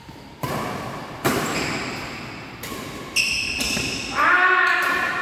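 Badminton rally: sharp racket strikes on the shuttlecock, echoing in the hall, about half a second in, a second later and again around three seconds in, with a brief high squeak. Near the end a player's voice calls out.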